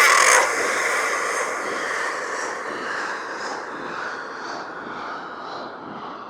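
Horror sound effect, a scream or creature cry, that starts suddenly at full loudness and fades slowly into a long, rushing, noisy tail with faint pulses about once a second.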